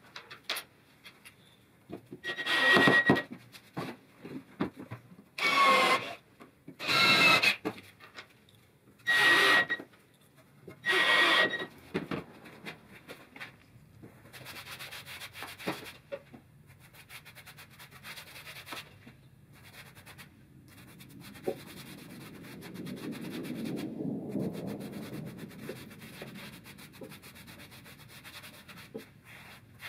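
Ryobi cordless drill driving screws into plywood in five short bursts of about a second each, its motor whine rising in pitch in some of them. Then a gloved hand rubs and wipes across the wooden sled surface, swelling a little past the middle of that stretch.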